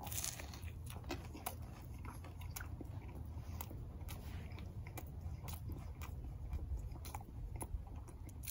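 A bite into a grill-toasted breakfast sandwich right at the start, then steady chewing with small crunches and mouth clicks.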